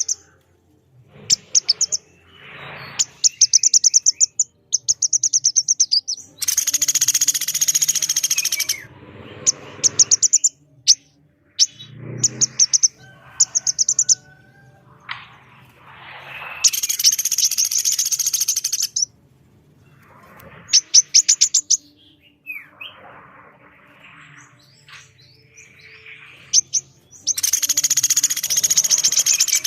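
Birdsong recording of a common flameback woodpecker and a female brown-throated sunbird calling: short, rapid rattling call series repeat throughout, with three longer harsh rattling trills of about two seconds each, and thinner chirps in between.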